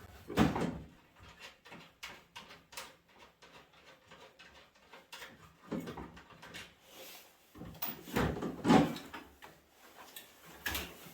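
Metal clanking and rattling as an old microwave oven's steel housing and inner parts are worked apart by hand: a steady run of small clicks and knocks, with louder clattering near the start and again about eight seconds in.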